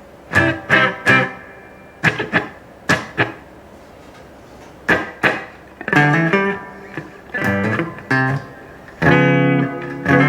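Electric guitar, a Gibson Les Paul, played through an Electro-Harmonix Oceans 11 reverb pedal into a Blues Cube amplifier. Short picked notes and chord stabs come with pauses between them, and a fuller chord rings on about nine seconds in.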